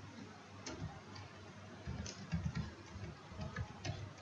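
Computer keyboard keys clicking as a word is typed: a quick, irregular run of light keystrokes, sparse at first and coming faster from about two seconds in.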